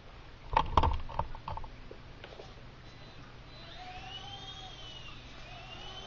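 A few sharp clicks and knocks, then from about three and a half seconds in the electric motors of a micro RC helicopter start to whine. The high pitch slowly rises and falls as it lifts off.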